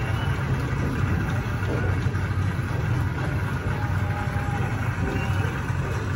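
Steady low hum of indoor room ambience, likely ventilation and machinery, with a few faint short electronic tones over it.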